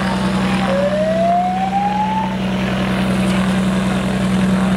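An engine running steadily at idle, a constant low hum with a fast even pulse, with a brief rising whine about a second in.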